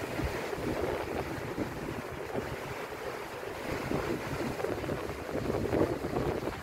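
Wind buffeting the microphone in uneven gusts over the steady wash of rough surf breaking on a sandy beach.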